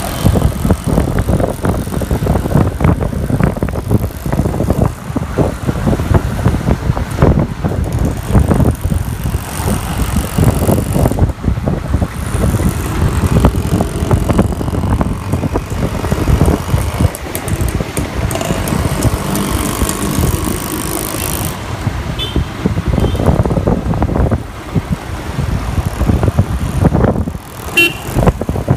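A motorbike riding through city streets, heard from on the bike: engine running under a heavy, fluttering rush of wind on the microphone, with passing traffic around it.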